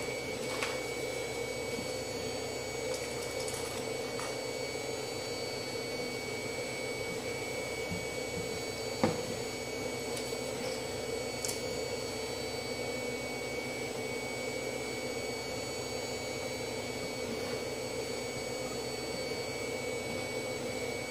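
Steady background hum with a few faint clicks near the start and one sharp tap about nine seconds in.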